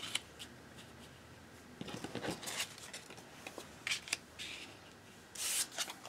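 Die-cut cardstock pieces being handled and laid on a card base on a cutting mat: faint scattered paper rustles and light taps, with a longer rustle near the end.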